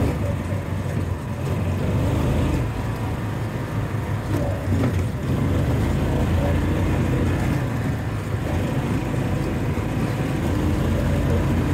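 John Deere Gator utility vehicle's engine running steadily as it drives along at a constant pace.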